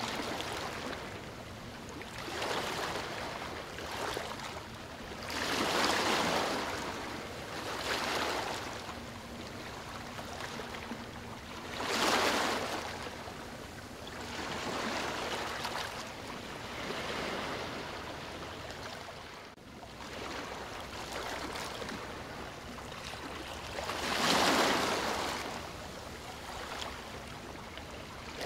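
Rushing water ambience, a steady wash that swells and fades every few seconds like surf, with the strongest swells about a quarter, halfway and near the end.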